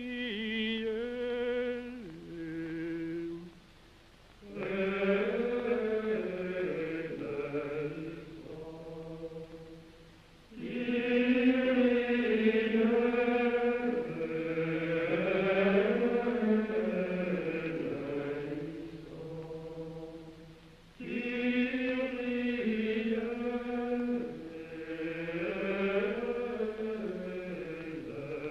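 Slow vocal chant, with long held notes sung in phrases and brief pauses between them.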